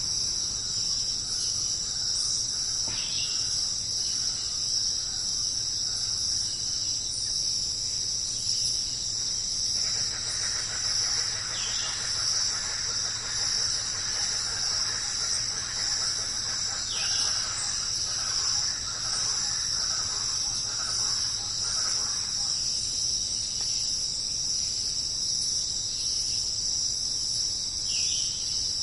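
Steady, high-pitched chorus of rainforest insects, unbroken throughout. A few short falling bird whistles come now and then, and a fainter chatter of calls rises beneath it through the middle.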